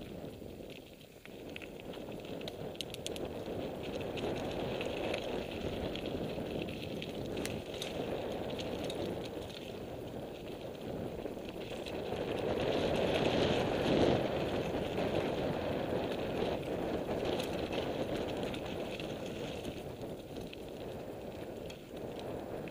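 Mountain bike ridden fast down a dirt forest singletrack: steady tyre noise on the trail with the bike rattling over the bumps. It grows louder toward the middle, as the speed picks up, then eases off.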